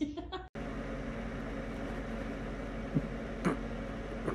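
Steady low hum of room noise, with two brief faint sounds about three seconds in.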